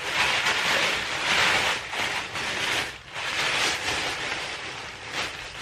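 Packaging rustling and crinkling as the second high-heel shoe is unwrapped, in two long stretches with a short break about three seconds in.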